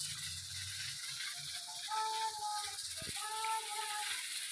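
Potato, spinach and onion pakoras deep-frying in hot oil, a steady sizzling hiss of bubbling oil. Two short held tones sound in the middle, about a second apart.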